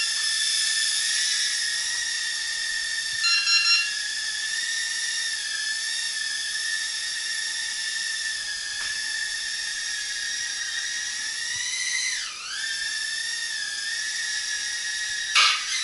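Floureon FX10 micro quadcopter's motors and propellers whining steadily in flight, with a quick dip and recovery in pitch about twelve seconds in. Brief high beeps sound about three seconds in. Near the end it strikes something with a sharp knock.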